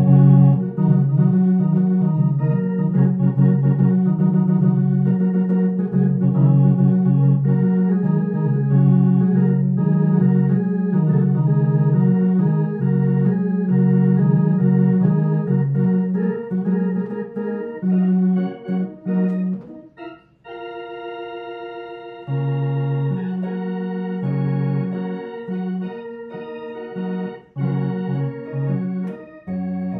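A two-keyboard home organ played in a blues style: sustained chords over a steady bass line. About two-thirds through the playing breaks off briefly, a single chord is held for a couple of seconds, and then the playing resumes more quietly.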